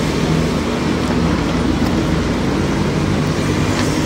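Steady road traffic and engine noise: a low engine hum under a wide, even hiss.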